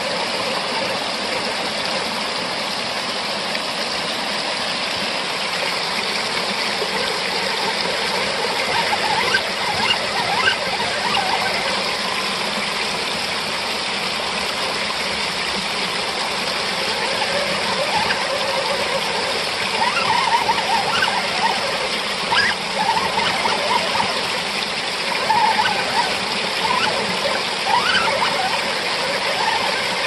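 Waterfall water rushing steadily over rocks. From about nine seconds in come short, irregular squealing whines from the drivetrain of the Axial Bomber RC rock crawler as it climbs the wet boulders.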